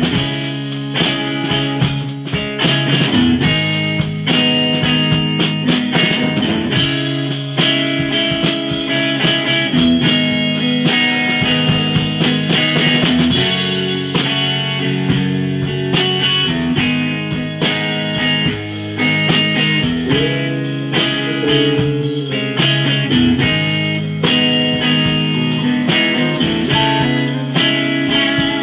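Blues jam: a Stratocaster electric guitar played through a 1964 Fender Vibroverb tube amp, with a drum kit keeping time in frequent sharp hits.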